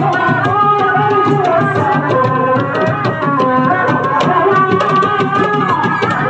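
Kuda lumping accompaniment music: drums beating a quick, busy pattern under a wavering, sliding melody line.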